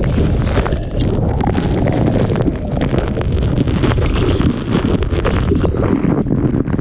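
Loud, steady rushing of wind and water on the microphone of a speedboat heading into a waterfall, with many small crackles through it.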